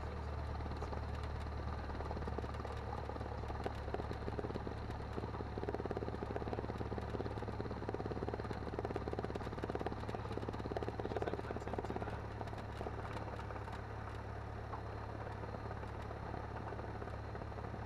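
Cessna 172N's four-cylinder Lycoming piston engine and propeller running steadily at low taxi power, a low drone. Between about four and twelve seconds in, a patch of rattling and crackle rides on top of it.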